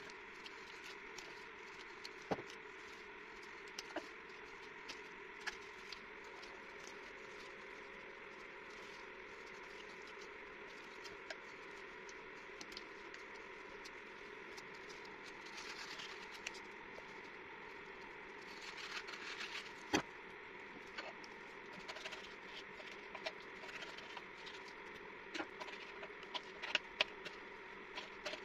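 Kitchen handling sounds: scattered light clicks and knocks over a steady hum, with louder knocks about two seconds in and about twenty seconds in.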